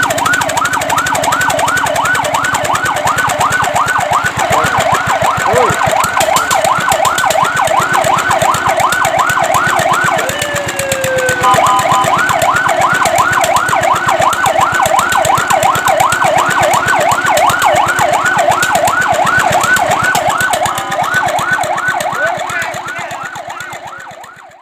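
Fire truck siren in a fast yelp, its pitch rising and falling several times a second. About halfway through it breaks into one slower sweep before the fast yelp resumes, and it fades out near the end.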